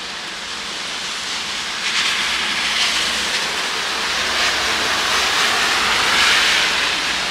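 Rain falling steadily, with a vehicle's tyres hissing on the wet street, growing louder from about two seconds in as it approaches and loudest near six seconds.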